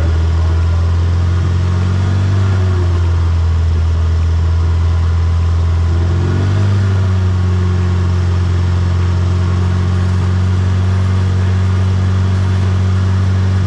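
Subaru boxer engine swapped into a VW Beetle, idling steadily and loudly. Its pitch wavers briefly about halfway through, then settles slightly higher.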